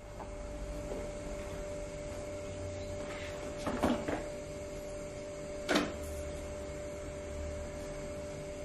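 Steady electrical hum with a low rumble underneath. A few light knocks and clicks come through it about four seconds in and again near six seconds.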